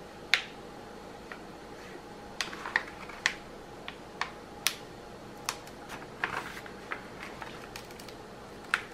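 Protective release paper being peeled back from the double-sided adhesive of a diamond painting canvas: about a dozen sharp crackles and clicks at irregular intervals as the tacky glue lets go of the paper.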